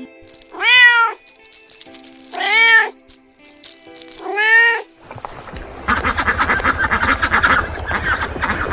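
Domestic cat meowing three times, each meow rising and then falling in pitch, about two seconds apart. From about five seconds in, a denser, rapidly pulsing sound takes over.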